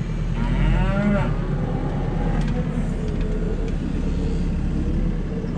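A cow mooing, one clear call about half a second in, over the steady low running of a farm vehicle's engine.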